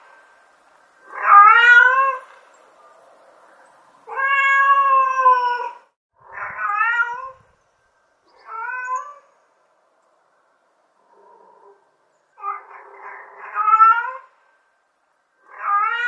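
Domestic cat meowing repeatedly: a mother cat calling for her kittens. There are about seven drawn-out meows, a second or two apart, several bending in pitch, with a longer pause near the middle and one fainter call in it.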